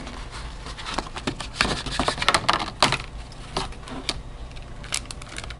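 Scattered clicks and rustles of a software box and its disc packaging being handled as the install disc is taken out.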